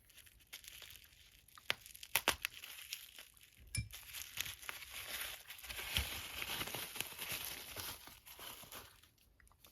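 Wrapping around a small padlock being crinkled and torn open by hand, with a few sharp clicks and knocks among the rustling.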